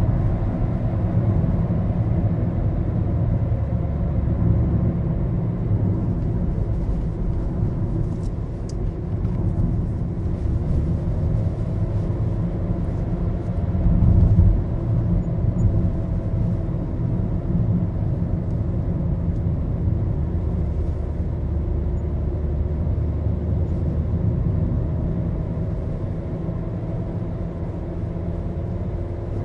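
Maruti Suzuki Baleno driving on the road, heard from inside the cabin: a steady engine and tyre rumble, with a brief louder low thump about 14 seconds in.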